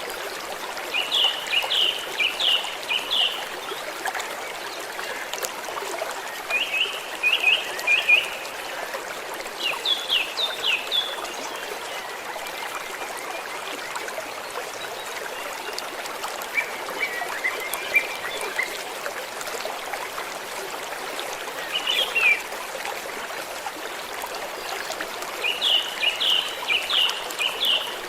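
Small stream flowing and trickling steadily. About six short runs of rapid high chirps, each of four to six notes, come every few seconds over the water.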